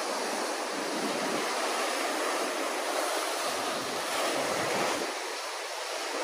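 Ocean swell breaking and washing over a rock ledge, a steady rush of white water that swells a little about two-thirds of the way through.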